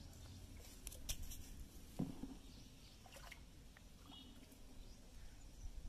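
Mostly quiet, with faint soft splashes and clicks of bare feet wading in shallow pond water, and a brief faint sound about two seconds in.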